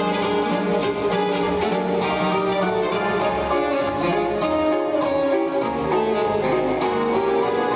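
Quickstep ballroom dance music playing steadily.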